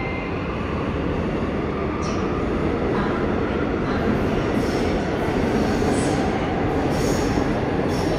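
Seoul Subway Line 1 electric train running into an underground station: a steady rumble, growing slightly louder, with short high-pitched wheel squeals every second or so.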